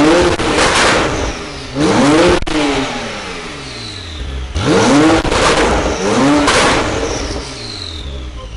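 Porsche 991.1 Turbo's twin-turbo flat-six, with an Akrapovic slip-on exhaust and catless link pipes, revved in four quick blips, each rising sharply and falling back. There is a sharp crack from the exhaust as the second rev drops.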